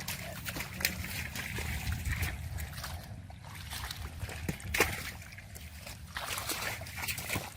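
Shallow muddy water sloshing and splashing, with scattered sharp splashes (the loudest a little past halfway) over a low steady rumble.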